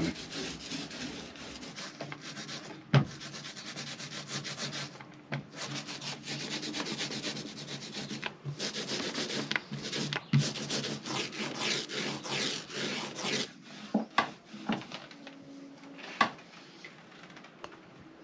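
Paint roller rolling primer onto a panel in repeated strokes: a steady rubbing with brief pauses, then a few scattered knocks near the end.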